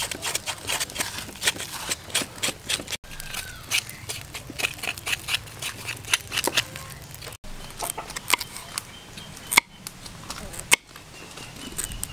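A knife scraping charred skin off a singed leg in quick rasping strokes, then a charcoal fire crackling under the roasting leg, and near the end a knife cutting through carrot on a wooden chopping board.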